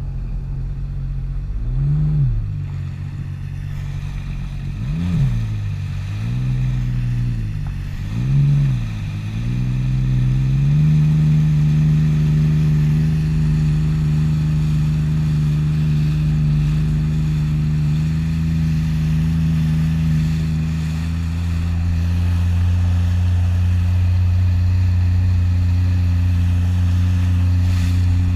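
Personal watercraft (jet ski) engine blipped up and down in four short revs, then opened up about ten seconds in to a steady higher-pitched run, stepping up in pitch once more about two-thirds of the way through as it picks up speed.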